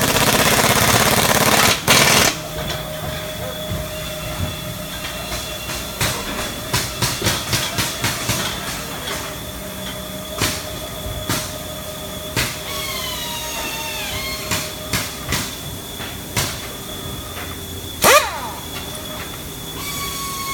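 Factory shop noise: a pneumatic hand tool fed by an air hose runs in a loud hissing burst for about two seconds, then sharp knocks and clicks of tool work come scattered and in quick runs, with one loud knock near the end. A steady machine whine runs underneath.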